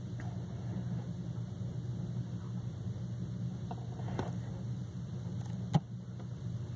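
A steady low hum, with a few light taps and then one sharp knock about two thirds of the way through as a hand brushes and bumps the recording phone.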